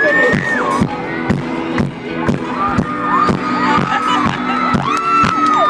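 A dance beat playing over the PA with a steady drum pulse, while a crowd of fans screams and cheers over it, with long high screams that rise and fall.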